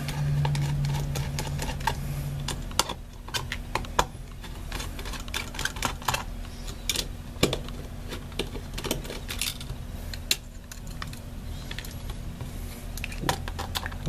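Small Torx screwdriver backing screws out of a Mac Mini's metal inner plate: many light, irregular clicks and ticks of the bit and screws against metal. A low steady hum sounds for the first two seconds or so.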